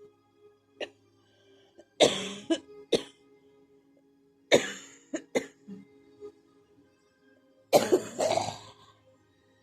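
A person coughing hard in a bad coughing fit. A small cough comes first, then clusters of two or three harsh coughs every couple of seconds, and a longer drawn-out coughing burst near the end.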